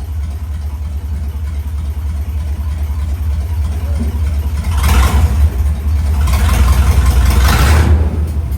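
Square body Chevy pickup's engine running with a steady low rumble while the transmission is run through the gears after a fluid top-up. About five seconds in it gets louder and stays up until near the end, as the engine is revved.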